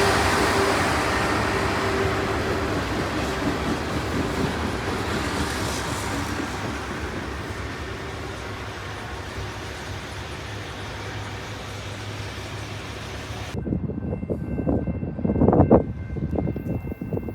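Freight train rolling past on the rails, a steady rumble and hiss of wheels that fades gradually as the train moves away. About 13 seconds in, the sound changes abruptly to uneven low rumbles and thumps.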